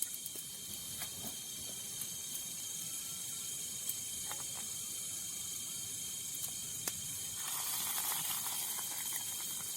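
Night insects in the forest making a steady high-pitched chorus, with scattered small clicks and a stretch of rustling about three quarters of the way through.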